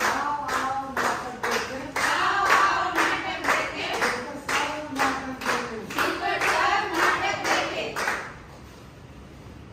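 A group of people clapping in time, about two claps a second, while several voices sing along; the clapping and singing stop about eight seconds in.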